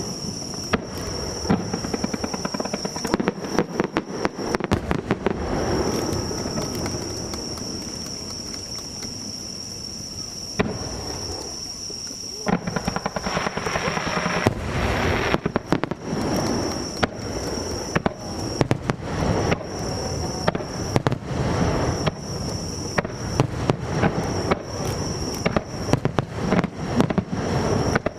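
Aerial fireworks display: shells bursting in quick succession with dense crackling and popping, and several heavier booms among them. A thin, steady high-pitched tone runs behind the bursts.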